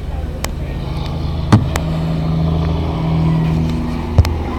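Low steady rumble of a train with a sustained hum, broken by two sharp knocks, one about a second and a half in and one near the end.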